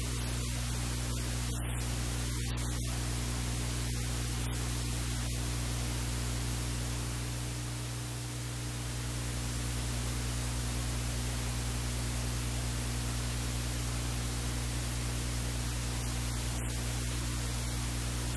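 Steady hiss with a low electrical mains hum, dipping slightly about halfway through; no distinct events.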